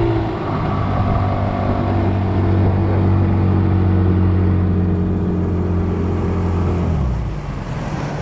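Boat's outboard motor running at a steady speed, then easing back and dropping in level about seven seconds in.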